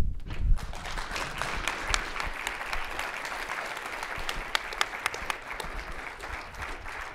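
Audience applauding, many hands clapping, slowly dying down near the end, with a low thump about half a second in.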